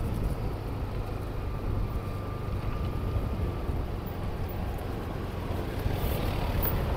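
Steady low rumble of a car driving slowly along a paving-stone street, its engine and tyres running at an even pace.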